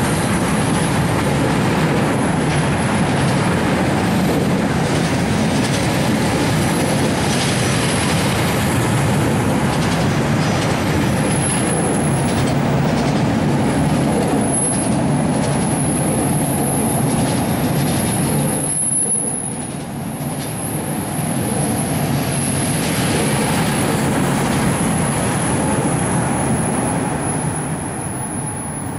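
Wagons of a Rollende Landstrasse freight train, loaded with lorries, rolling past with a steady loud rumble and clatter, and a thin high wheel squeal that comes and goes. The noise dips briefly about two-thirds of the way through and fades near the end as the last wagons go by.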